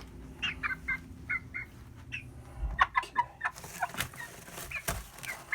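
Seven-week-old chickens peeping in short, high, repeated calls, several a second, with two sharp knocks near the end.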